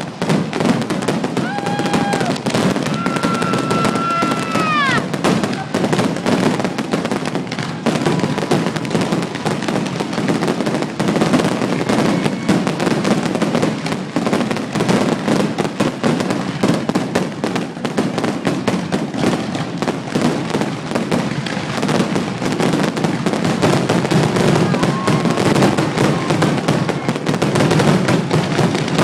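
Fireworks display with a continuous barrage of rapid bangs and crackling. A few seconds in, a whistling tone is held for about two seconds and then bends down in pitch.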